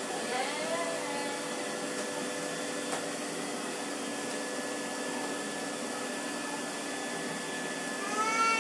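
Vacuum cleaner running steadily, a constant hum with a steady whine. Near the end a cat starts a long, loud meow.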